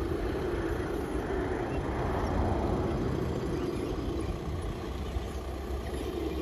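1/14-scale radio-controlled Caterpillar D10T bulldozer running as it pushes a pile of dirt: a steady drone that grows louder about two to three seconds in.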